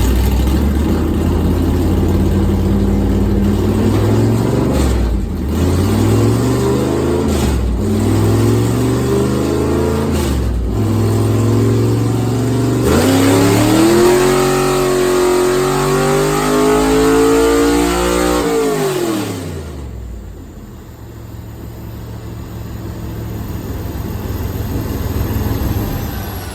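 Straight-axle gasser's engine accelerating hard, its pitch climbing and dropping back several times as it goes through the gears, then held high for several seconds before falling away about three quarters of the way through; a quieter engine sound rises again near the end.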